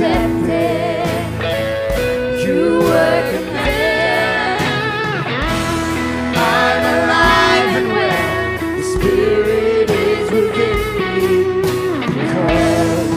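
Live worship band playing a slow rock ballad: electric guitar, acoustic guitar and electric bass, with singing over them.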